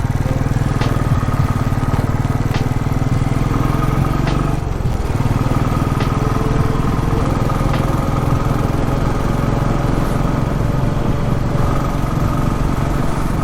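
Royal Enfield Classic 350 single-cylinder engine running steadily under way, with a brief dip about four and a half seconds in as the throttle eases, then pulling on with a faint slowly rising tone. A few short ticks sound over it.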